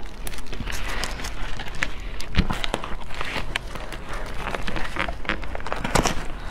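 A ripe durian's spiny husk being pried apart by hand along its seams: irregular cracking and crackling as the shell splits open, with a sharp crack about two and a half seconds in and another near the end, over the rustle of plastic gloves.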